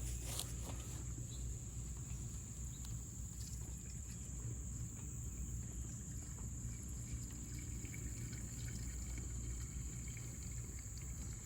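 Gasoline being poured into a small edger's fuel tank, a faint trickling pour.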